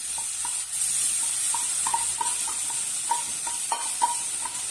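Onions sizzling steadily in coconut oil in a frying pan, while a utensil stirs them and clinks against the pan about three or four times a second.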